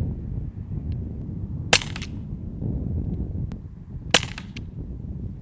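Two shots from a CO2 blowback paintball pistol (Umarex Glock 17 Gen5, calibre .43), about two and a half seconds apart. Each is a sharp crack followed a fraction of a second later by a fainter click. Wind rumbles on the microphone throughout.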